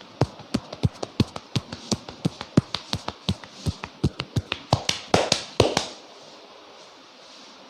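A barber's hands striking in a percussive massage, a steady run of sharp taps at about four a second. They end in a quicker flurry and stop about six seconds in.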